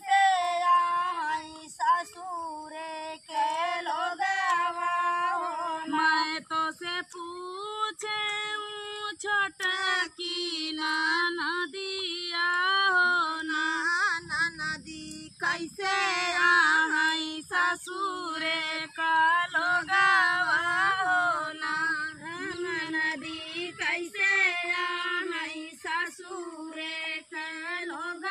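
Female voice singing a village rice-transplanting folk song (dhaan ropai kajari geet), unbroken throughout.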